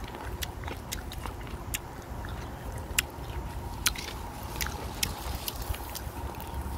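A person chewing a firm, chewy Hongsubong sweet cherry close to the microphone, with irregular sharp clicks and smacks.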